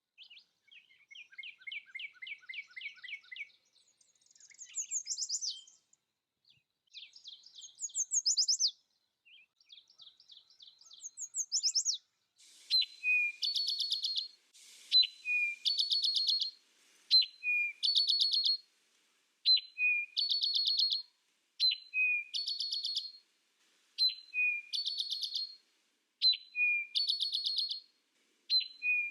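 Songbird singing: varied whistled phrases and fast trills at first, then from about twelve seconds in the same short trilled phrase repeated roughly every two seconds, each ending in a lower note.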